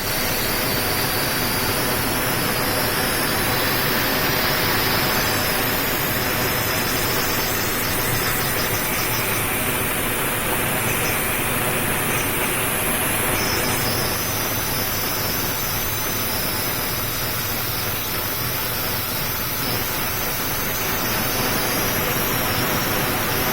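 Freshly descaled table-top fully automatic cappuccino machine running: a steady hiss with a low hum underneath, its tone shifting slightly around the middle.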